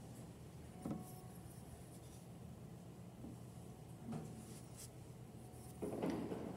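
Faint scratching of a thin pointed wooden stick drawing lines into a soft clay slab: a few soft scrapes, with a louder rub near the end, over a low steady hum.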